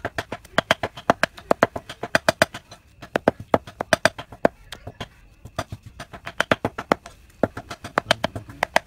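A kitchen knife chopping raw fish fillets on a round wooden chopping board, the blade knocking on the wood in a quick steady run of about four or five strokes a second, with short pauses about five and seven seconds in. The fish is being minced for fish balls.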